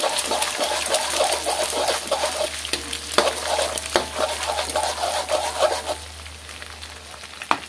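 Egg frying and sizzling in oil in a metal wok while a metal spatula stirs and breaks it up, scraping and knocking against the pan. The scraping stops about six seconds in, leaving the sizzle, with one more knock near the end.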